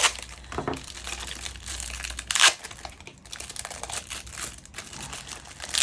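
Packaging of a Beyblade X booster pack crinkling and tearing as it is ripped open by hand, with a sharper rip about two and a half seconds in.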